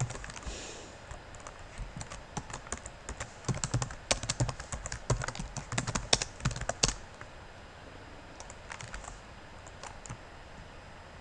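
Typing on a computer keyboard: quick runs of keystrokes for most of the first seven seconds, then a few scattered taps, then the typing stops near the end.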